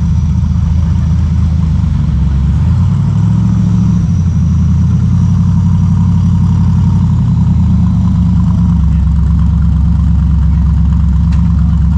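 Rock crawler's engine running at low revs as it climbs a rocky ledge, with a deep, steady drone whose pitch steps up and down several times as the throttle is worked.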